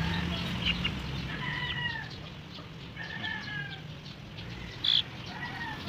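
Chickens calling: several drawn-out, arching calls, with one short sharp squawk about five seconds in.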